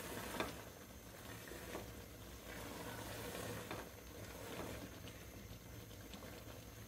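Thick chicken-and-chickpea curry, thickened with mashed masoor dal, bubbling faintly in the pot with scattered soft pops.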